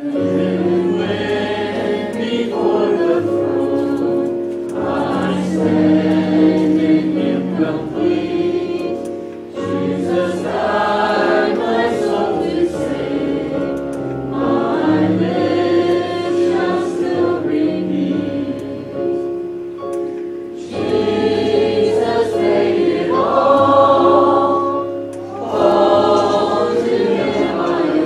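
Voices singing a hymn together, in phrases of about five seconds separated by short breaths, over steady sustained accompaniment notes.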